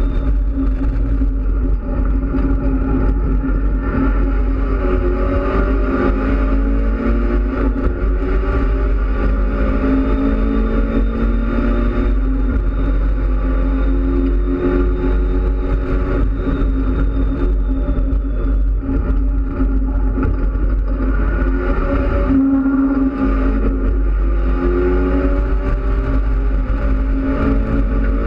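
Mitsubishi Lancer Evolution X race car's turbocharged four-cylinder engine heard from inside the stripped cabin at full track pace. Its pitch rises in several long sweeps as it accelerates through the gears, dropping back at each shift or lift.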